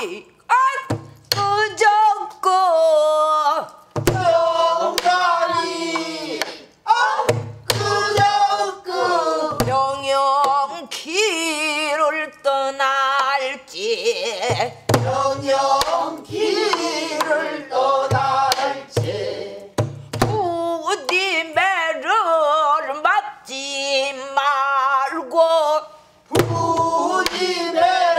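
A woman singing pansori in full voice with wide vibrato, keeping time on a buk barrel drum: deep beats on the drumhead every second or two, and sharp clicks of the stick on the drum's wooden shell.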